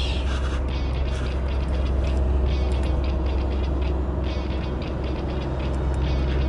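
Background music over a steady low rumble, with small clusters of light ticks recurring every second or two.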